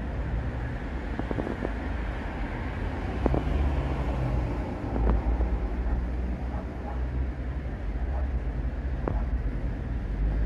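Steady low rumbling background noise, with a few light clicks scattered through it.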